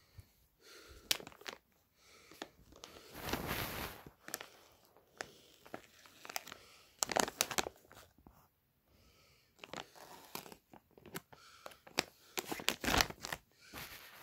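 Glossy plastic packaging bag of goalkeeper gloves crinkling as it is handled and turned over: a run of sharp crackles with a few longer rustles.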